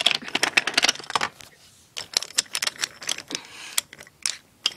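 Wooden toy trains clattering and clicking on wooden track as they are pushed by hand. There is a quick run of clicks and knocks in the first second or so, then scattered single clicks.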